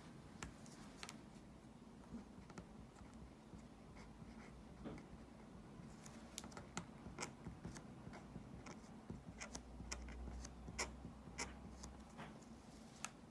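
Pen writing on a postcard: irregular small scratches and taps that become busier about halfway through.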